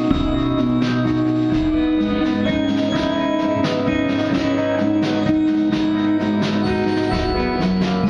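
Band music: guitar and keyboard synthesizer notes over a drum kit keeping a steady beat.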